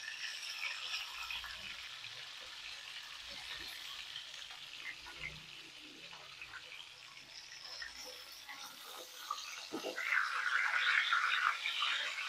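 Tilapia steaks frying in hot oil in a pan: a continuous sizzle with crackling spatters.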